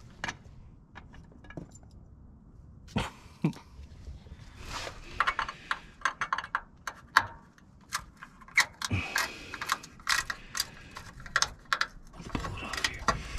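Screwdriver clicking and scraping against metal fittings under a van, a quick, irregular run of sharp metallic clicks and clinks starting about three seconds in.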